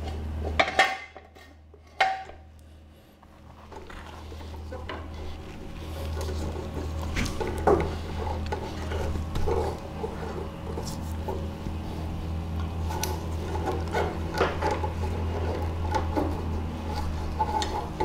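Hand tools and loose metal parts clinking and knocking against the steel swing-axle spring plate and brake parts of a VW rear suspension. There are two sharp knocks in the first two seconds, then a run of lighter clinks over a steady low hum.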